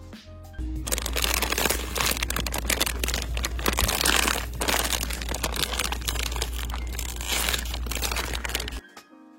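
Loud crinkling and rustling very close to the microphone, with a low rumble under it. It starts abruptly about half a second in and cuts off suddenly near the end.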